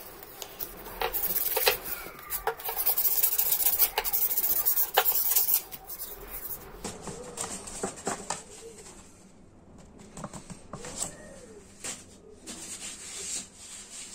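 Sandpaper rubbed briskly by hand over an old hammer, a rapid scratchy rasping for about the first six seconds. After that, only quieter rustling and light clicks as the sheets of silicon carbide sandpaper are handled.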